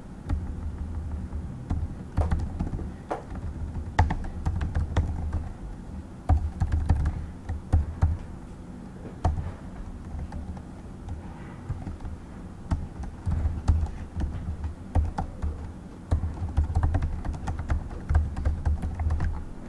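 Typing on a computer keyboard: irregular runs of clicking keystrokes with short pauses between them, and a low thud under many of the strokes.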